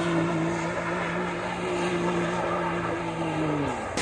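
Engine running at a steady speed, its pitch dropping as it slows near the end, then stopping abruptly.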